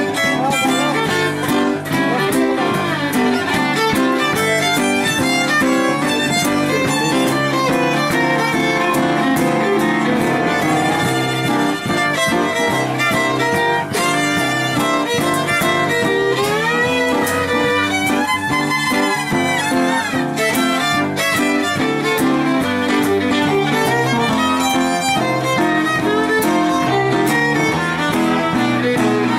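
Fiddle playing a lively swing tune over strummed acoustic guitar and piano accompaniment, with sliding notes in the melody about halfway through.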